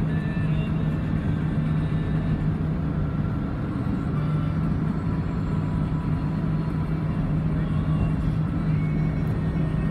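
Steady road noise of a car driving, heard from inside the cabin: an even rumble of engine and tyres with a constant low drone.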